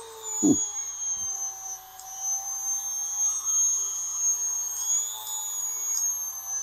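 EzzDoo handheld electric chainsaw sharpener's small motor running free, not touching the chain, with a steady high-pitched whine at one of its speed settings. A brief thud comes about half a second in.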